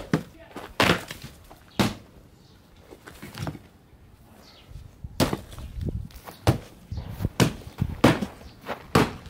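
Axe chopping into wooden logs: a few sharp chops about a second apart, a short lull, then a quick run of about two chops a second in the second half.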